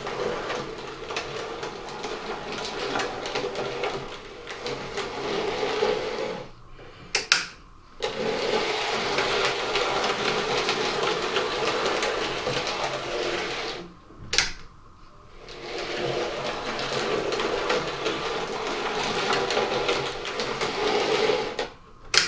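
The electric motor and gears of a Hornby Schools class OO-gauge model locomotive whirring steadily as it runs forwards through the points on a test track. The sound dips away briefly three times, each time with a sharp click.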